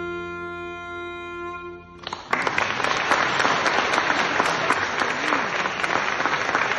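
A long held final note on a wind instrument stops about two seconds in, and the audience breaks into steady applause.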